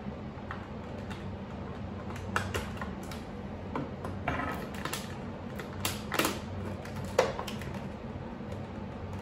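Clear plastic blister packaging crinkling and clicking in irregular bursts as an action figure is cut and pulled free of it, over a low steady hum.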